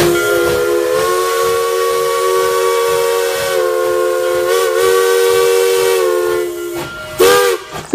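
Steam locomotive's chime whistle blowing one long blast, several tones sounding together, with a slight waver in pitch over a hiss of steam. It cuts off near the end.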